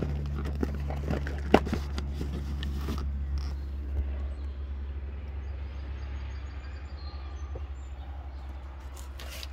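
A steady low hum, with scattered light clicks and knocks in the first few seconds, the sharpest about one and a half seconds in.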